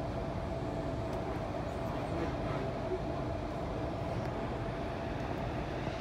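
Running noise heard from inside a Sydney Trains Tangara electric train in motion: a steady rumble of wheels on rails with a constant hum.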